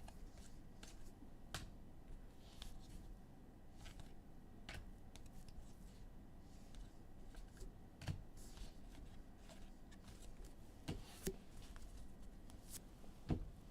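Faint rustling and scattered light clicks of trading cards and their packs being handled and sorted.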